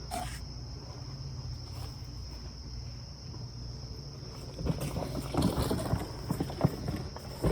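Steady high trilling of insects such as crickets over a low hum. From about four and a half seconds in, irregular rustling and light knocks of something being handled.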